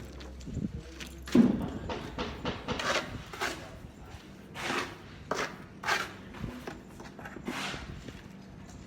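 A string of irregular hard knocks and scrapes, roughly one every second, from hand tools at work on a building site.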